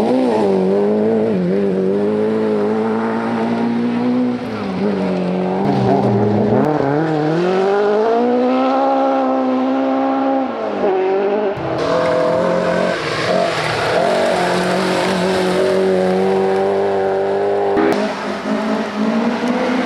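Ford Escort Mk1 rally cars' four-cylinder engines revving hard on a gravel stage, the pitch climbing and dropping again and again through gear changes, with tyre noise on the loose surface. Three passes in turn, the sound changing abruptly about twelve and eighteen seconds in.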